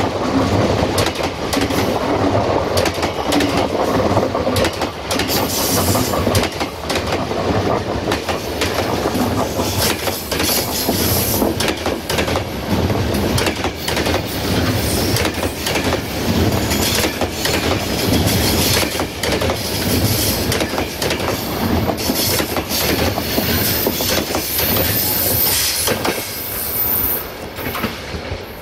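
Wheels of a long rake of passenger coaches rolling past on jointed track: a steady rumble with a rapid clickety-clack over the rail joints and a high-pitched squeal at times. It fades near the end as the last coach moves away.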